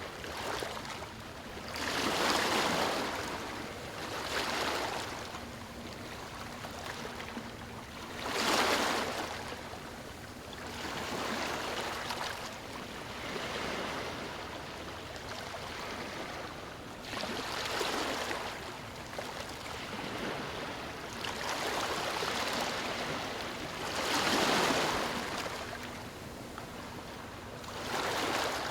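Small waves breaking and washing over a stony shore, one swell every few seconds rising and falling over a steady rush of water.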